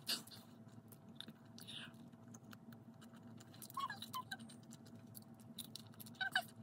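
Quiet chewing and mouth sounds from someone eating a sandwich: scattered soft clicks and smacks, with a few brief squeaky sounds about four and six seconds in, over a faint steady hum.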